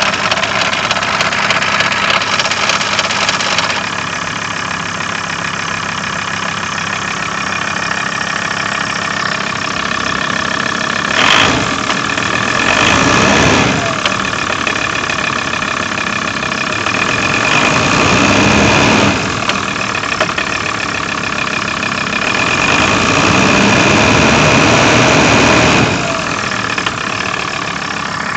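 VW LT28 diesel engine running with a knock from a failing crankshaft damper pulley. About four seconds in the sound gets slightly quieter, which is when the glow plugs switch off and the pulley's knock changes a little. Later the engine is revved briefly three times.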